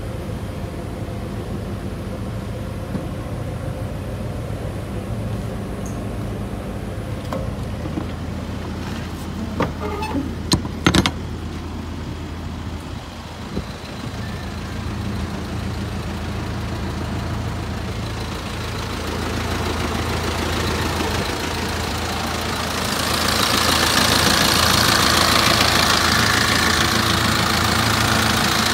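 Mitsubishi Canter truck's engine idling steadily. A few sharp metallic clicks come about ten seconds in, and a louder rushing noise joins in about two-thirds of the way through.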